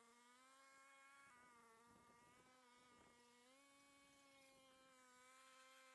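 Near silence, with a faint steady hum that drifts slightly in pitch.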